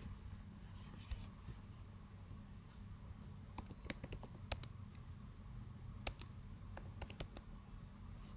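Faint computer keyboard keystrokes: a few isolated key presses scattered over several seconds, over a low steady hum.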